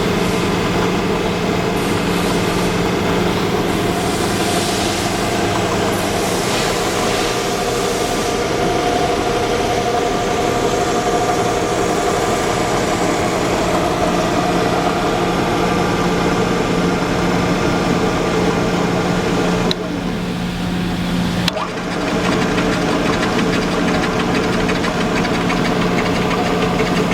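Enco vertical milling machine running, its spindle motor and drive giving a loud, steady hum with a constant pitch. It drops briefly quieter about twenty seconds in, then carries on as before.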